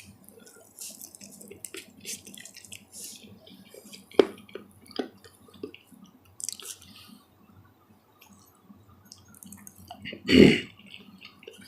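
Close-up chewing of chicken: wet mouth smacking and small clicks scattered throughout, with a few sharper clicks around four to five seconds in and one louder, longer mouth noise about ten and a half seconds in.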